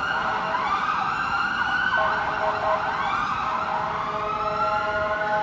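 Emergency vehicle siren wailing, its pitch rising and falling over and over, with steady held tones joining about two seconds in.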